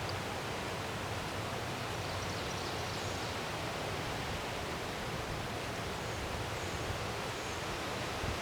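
Steady wind blowing through the woods, a constant rushing hiss of wind and leaves, with a few faint high chirps.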